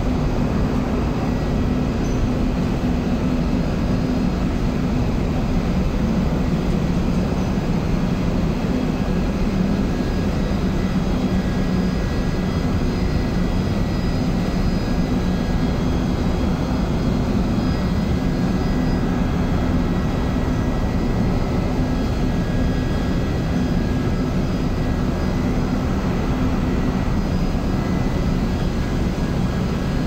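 Air handling unit fed by chilled water running steadily: an even, continuous machine drone with a strong low hum and a faint steady high whine.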